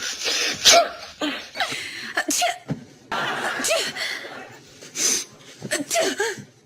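A woman sneezing several times in a row, with laughter mixed in.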